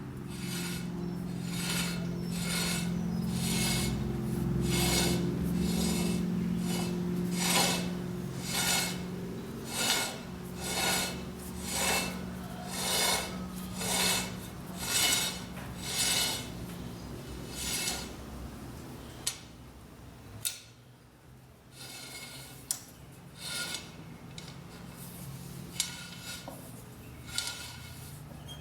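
Rhythmic rasping strokes of a hand tool, about one a second, over a steady low hum. After about twenty seconds the strokes stop, leaving a few scattered clicks and scrapes.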